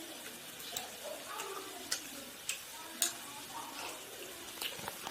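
Scattered sharp clicks and clinks of dishes and utensils being handled, over a steady hiss like running water or sizzling; the loudest clicks come about two and three seconds in.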